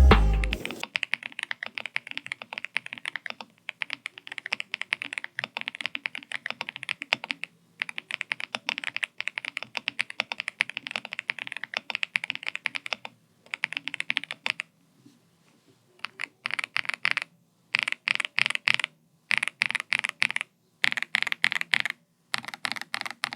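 Fast typing on a mechanical keyboard fitted with heavy Akko x Monsgeek Green Fog switches: rapid runs of key clacks, broken by several short pauses in the second half.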